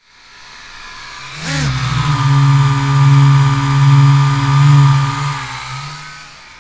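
Small quadcopter drone's propellers whirring: a quick rising sweep about a second and a half in, then a steady buzzing hum that fades out near the end.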